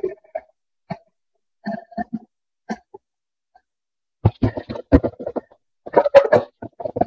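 Gasoline glugging out of a plastic gas can through its spout into a lawnmower's empty fuel tank, a few scattered gulps at first, then a louder run of glugs and plastic clunks as the can and spout are handled near the end.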